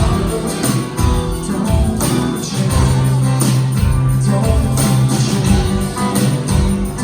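Live band playing an instrumental passage: guitar and bass over a steady beat.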